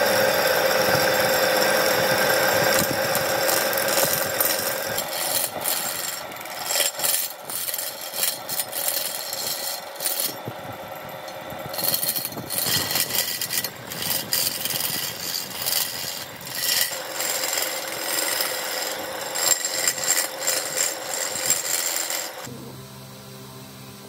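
Hand turning chisel cutting a spinning burl-wood and epoxy blank on a wood lathe, a harsh, uneven scraping that rises and falls as the tool is worked along the blank. The cutting stops about three-quarters of a second before the end, leaving a quieter running sound.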